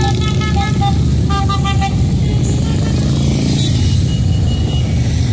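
A procession of motorcycles running past with a steady, dense engine rumble, with short horn toots in the first two seconds.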